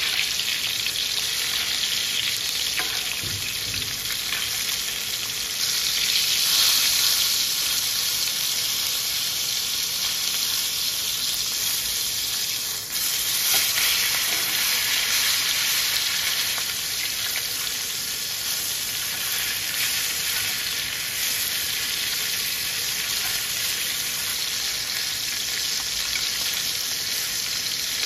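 Rib eye steak sizzling in hot butter in a cast-iron skillet, a steady frying hiss that swells a few times as the butter is spooned over it.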